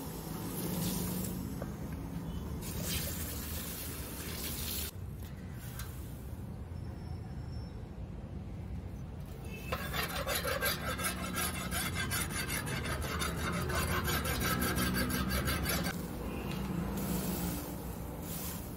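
Water poured from a cup over a leaf-spring steel billhook blade and splashing into a metal pot. About ten seconds in, a rapid rasping scrape along the steel runs for about six seconds, then the pouring resumes near the end.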